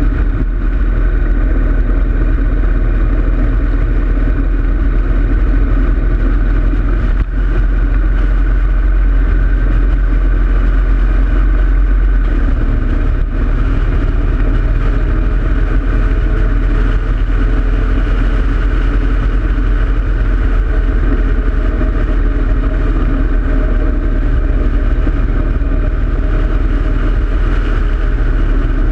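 2013 Harley-Davidson Road King Classic's Twin Cam 103 V-twin engine running steadily while the motorcycle is ridden along a road, heard from a camera mounted on the bike.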